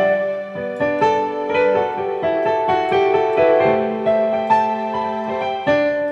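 Piano music: chords and a melody line, with new notes struck every half second or so.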